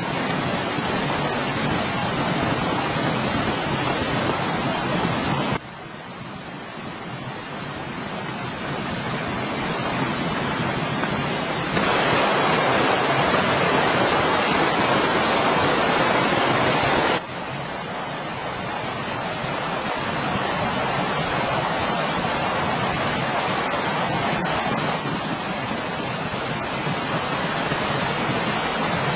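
Steady rain, an even hiss with no distinct drops, whose level jumps abruptly about 6, 12 and 17 seconds in, loudest between 12 and 17 seconds.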